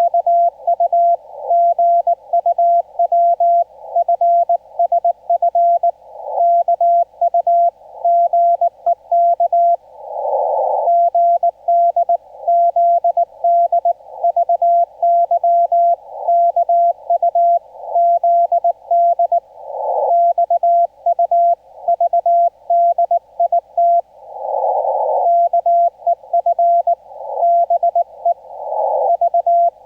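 Korean Morse code (CW) heard through a ham radio transceiver: a single steady mid-pitched tone keyed in quick dots and dashes. In the longer pauses between characters, band noise rises as a hiss in the receiver's narrow CW filter.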